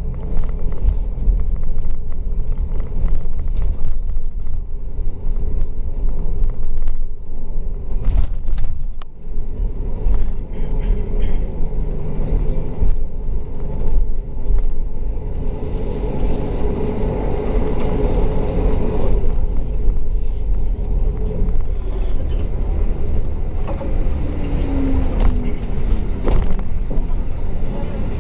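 City bus in motion heard from inside: engine running and a low rumble from the road, with a few sharp knocks about a third of the way through.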